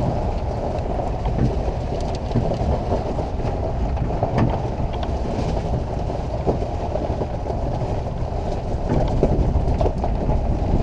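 Pickup truck driving over gravel, heard from its open bed: a steady rumble of tyres and engine with wind buffeting the microphone, and a few short knocks and rattles from the bed.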